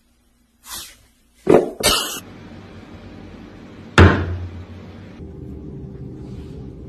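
A few short knocks and thumps, the loudest a sudden heavy thump about four seconds in, followed by a faint low steady hum.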